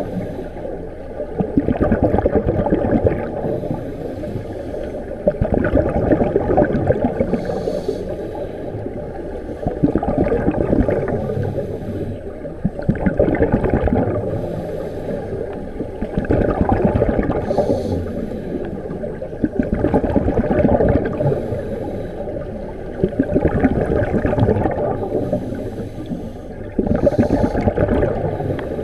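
Scuba breathing heard underwater: the regulator's bubbling exhalations come round about every three to four seconds, with a fainter hiss between them.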